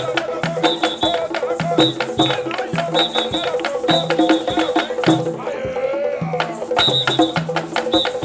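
An African-style drum troupe plays a fast, steady rhythm on tall hand drums, with pitched notes repeating in a regular pattern. The sharp drum strikes drop out for about a second a little past halfway, then resume.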